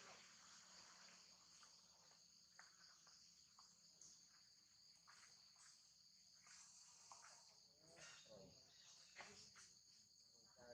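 Faint insect chorus: a steady high-pitched drone, with scattered faint ticks.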